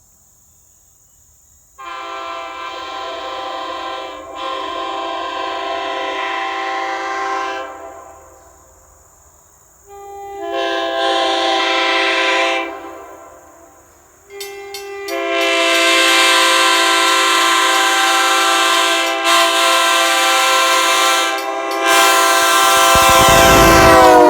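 Nathan Airchime K3LA three-chime locomotive air horn (bells 1, 2 and 4A) sounding its chord in three blasts: about six seconds, then about three seconds, then a long one that grows louder and sags in pitch near the end.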